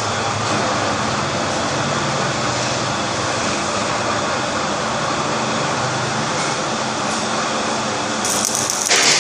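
Automatic multi-wire tunnel-brick cutting machine and its production line running steadily, with a low hum under the noise. About eight seconds in, a short, loud burst of hiss sounds.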